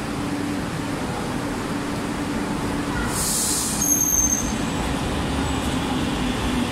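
Barcelona metro train standing at the platform with a steady hum. About three seconds in there is a short hiss as the doors are opened, followed by a brief beep.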